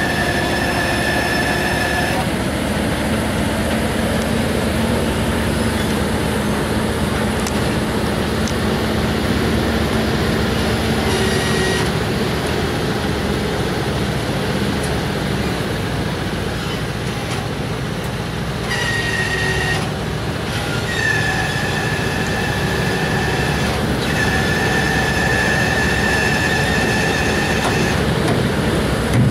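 Heavy-haul truck and multi-axle modular trailer, loaded with a ship hull, rolling slowly past with a steady heavy rumble. A high-pitched squeal from the running gear comes and goes several times.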